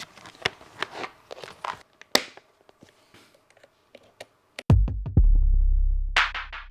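Electronic beat from a Teenage Engineering EP-133 K.O.II sampler: a few sharp drum-machine hits, a sparse stretch, then a deep bass kick that drops in pitch and holds about two-thirds of the way in, with bright hi-hat hits starting near the end.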